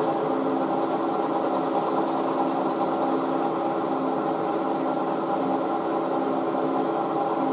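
Milling machine spindle running with an end mill spot-milling a flat on a metal block: a steady machine hum with several notes, and a faint high whine that pulses through the first half.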